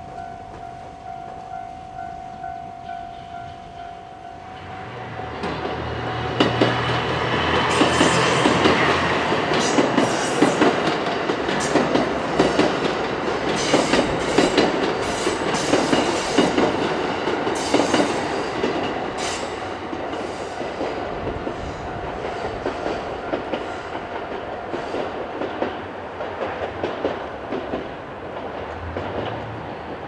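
A level-crossing warning bell ringing, then the Hamakaze limited express, a KiHa 189 series diesel train, passes close by from about five seconds in. Its diesel engines run and its wheels clatter quickly over the rail joints, loudest in the middle and easing off toward the end.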